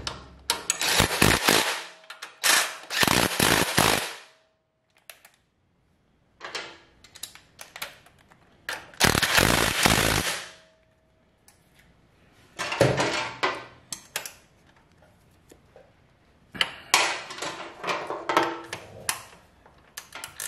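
Cordless impact driver hammering in several bursts of one to two seconds, run down the mounting bolts of the DL650 V-Strom's center stand.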